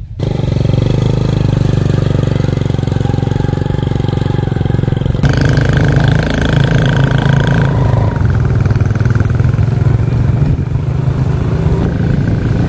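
Small motorboat's engine running steadily under way, a loud, even drone whose tone shifts slightly about five seconds in.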